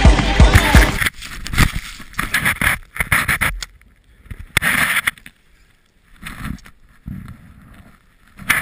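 Snowboard riding through deep powder: surges of rushing, hissing snow as the board cuts through and snow sprays over the camera, with near-quiet gaps between. A music track cuts off about a second in.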